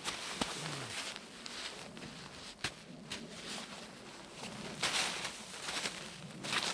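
Gloved hands scooping and packing snow against the edge of a tarp to weigh it down: a series of irregular snow scrapes and crunches, the loudest about five seconds in.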